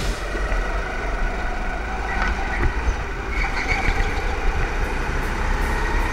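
Go-kart engines running on the track, a steady mechanical drone with a faint whine.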